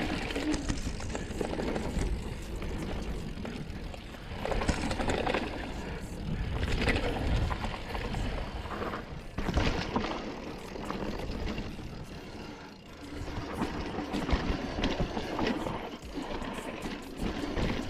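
Mountain bike ridden on a dirt trail: wind rushing over the microphone and tyre noise, rising and falling, with frequent short rattles and clicks.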